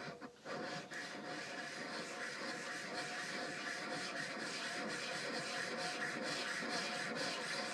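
High-carbon steel ice-spider chisel blade being rubbed under firm pressure on a diamond-coated sharpening stone, a continuous gritty scraping that flattens and smooths the blade's bottom.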